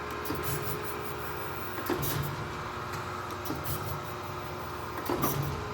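A few light knocks and handling sounds over a steady hum, as a surface grinder's wheel mount is handled.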